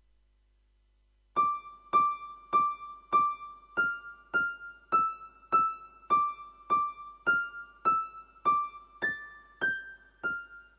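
GEM SK880 keyboard workstation playing a slow melody of single electric-piano notes, about one every 0.6 seconds. The notes move mostly between two neighbouring pitches, rise near the end and step back down.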